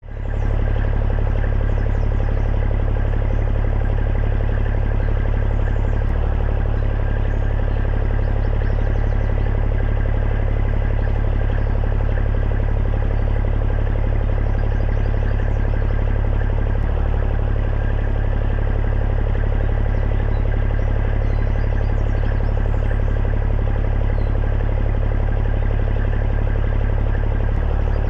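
A machine running steadily, with a loud, even low hum.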